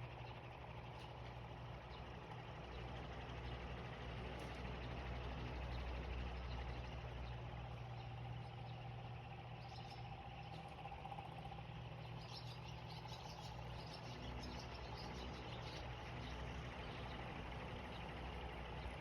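Faint background noise with a steady low hum, and faint bird chirps about ten seconds in.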